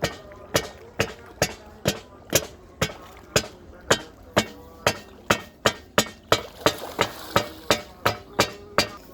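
Steady series of sharp knocks, about two a second, stopping just before the end.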